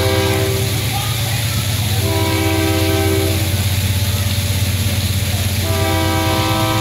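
Union Pacific diesel locomotive sounding its multi-chime air horn in long blasts: one ends just under a second in, a second runs from about two seconds in for a second and a half, and a third starts near the end. A steady low rumble from the passing locomotive and train runs beneath the horn.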